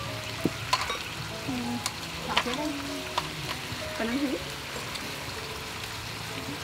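Beef and vegetables sizzling steadily on a hot grill pan over a portable gas stove, with several sharp clicks of tongs and chopsticks against the pan.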